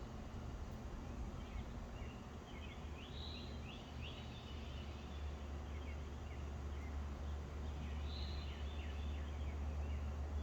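Small songbirds chirping in two short flurries of quick notes, one a couple of seconds in and one near the end, over a steady low rumble.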